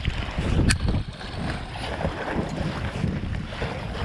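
Wind buffeting the microphone over water splashing and lapping around a packraft being paddled into a strong headwind. There is one sharp click just under a second in.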